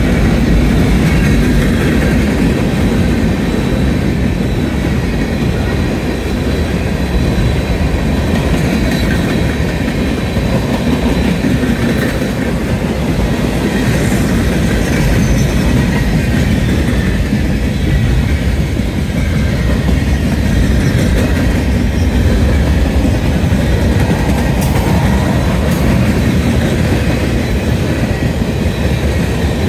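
Mixed freight train of hopper, gondola and tank cars rolling past: a steady, loud rumble of steel wheels on rail, with a few clicks and a faint thin high whine.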